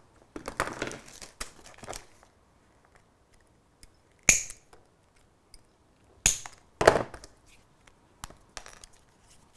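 Small cutters snipping through the plastic of a model railway coach's D link coupling: three sharp snaps in the second half, among quieter clicks and rustles of the part being handled.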